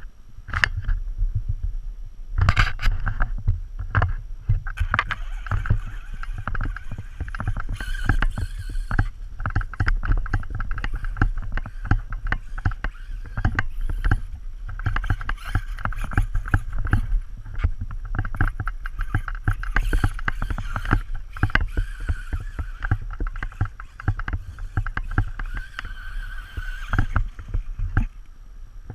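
Traxxas Slash 2WD RC truck running on a HobbyKing 1/8 brushless motor and ESC (1900kv), with a steady high whine and many rapid clicks and knocks over a heavy low rumble. The owner calls it a bad sound.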